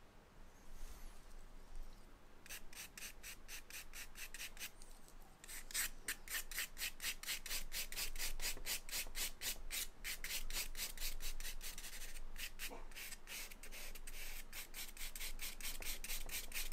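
A stick of charcoal scratching across drawing paper in quick back-and-forth hatching strokes, about five a second, blocking in shadows. The strokes start about two and a half seconds in and stop briefly twice.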